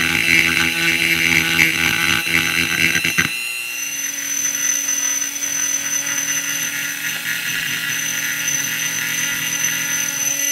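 Dremel rotary tool with a carbide milling bit cutting metal from inside a piston to bring it down to its balance weight. It starts as a whine with grinding chatter, then about three and a half seconds in changes to a steadier, higher whine.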